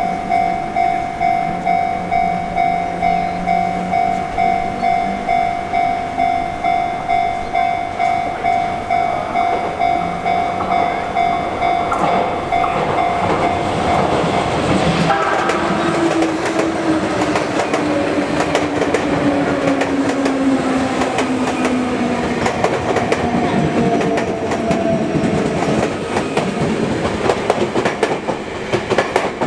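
Japanese level crossing bell clanging at a steady pace, about one and a half strokes a second, while a Sotetsu electric train runs over the crossing. From about halfway, wheel clatter on the rails grows and a motor whine slowly falls in pitch.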